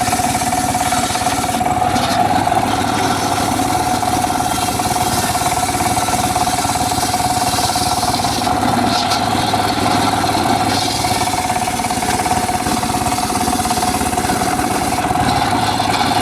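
Homemade circular sawmill running steadily: a continuous high whine from the spinning blade over the steady hum of its driving motor.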